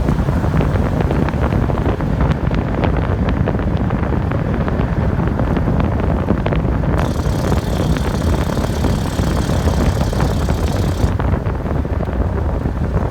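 2013 Dodge Charger's Hemi V8 running with a steady low rumble. Rapid irregular clicks are heard through roughly the first half, and a high hiss comes in about seven seconds in and stops a few seconds later. This is the unexplained 'weird noise' the owner is asking about.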